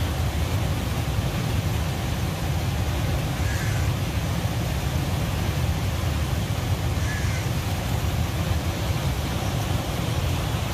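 Steady rushing of the flooded Vamsadhara river's fast, turbulent brown water, with a deep continuous rumble. Two faint short high sounds come through, about three and a half seconds apart.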